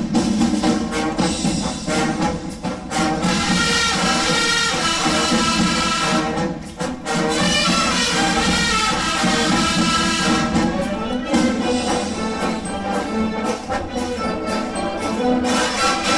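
High school marching band playing live brass-band music, with brass, sousaphones and drums.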